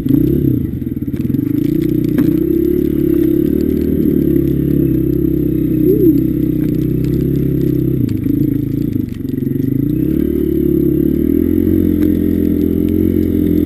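Honda CRF150F dirt bike's single-cylinder four-stroke engine running while riding over snow. The revs rise and fall with the throttle, easing off about a second in and again around nine seconds, then picking back up.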